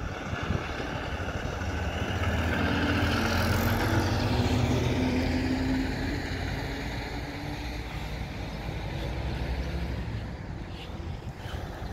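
Diesel engine of a semi tractor-trailer driving through an intersection. It grows louder to a peak about three to five seconds in, then fades as the truck drives off, leaving steady road and traffic noise.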